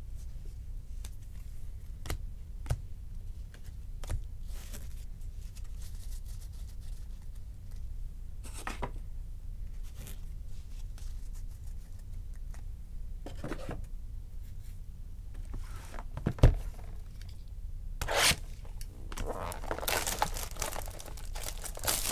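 Trading cards handled and set down on a table, with scattered light clicks and scrapes, and one sharp thump about three quarters of the way through. Near the end comes a dense stretch of plastic wrapping crinkling and tearing as a sealed card pack is opened.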